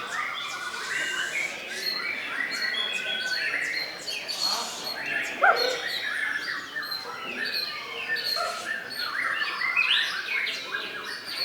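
Many caged songbirds singing at once in a competition, a dense, continuous chorus of overlapping chirps, trills and whistles, with one louder, sharp rising note about halfway through.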